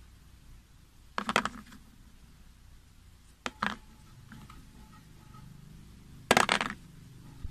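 Lead air-rifle slugs clinking on a metal tin lid as they are handled and set down: three short bursts of clicks, about a second in, about three and a half seconds in, and near the end.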